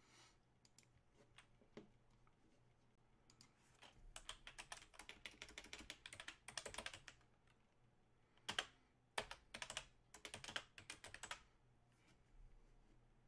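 Typing on a computer keyboard: runs of quick key clicks starting about three seconds in, the longest lasting about three seconds, then a few shorter runs with brief pauses between.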